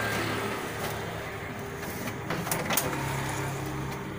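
Steady hiss from an LG slim 21-inch CRT television showing static snow, over a faint low hum, with a few sharp clicks a little past halfway.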